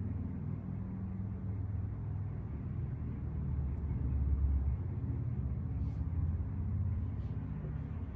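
A steady low rumble that swells about halfway through, with a couple of faint soft ticks near the end.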